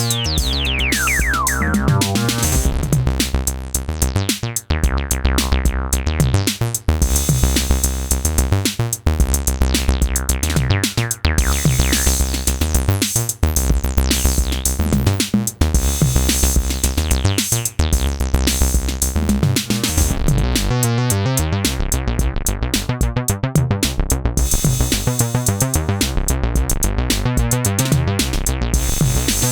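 Synthesizer bass line playing a repeating pattern over a drum machine beat, with a falling filter-like sweep near the start.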